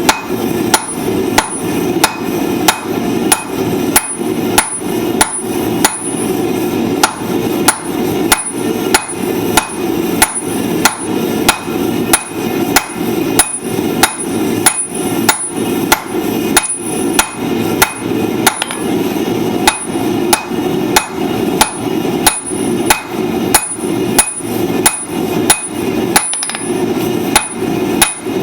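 Hand hammer striking hot steel on an anvil in a steady rhythm, about two blows a second, each with a short metallic ring, as flat-nib tongs are forged. A steady low rush runs underneath.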